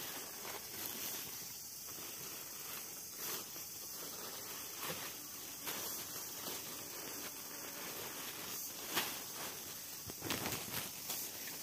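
Thin plastic bag crinkling and rustling in the hands in short, irregular bursts over a steady faint hiss.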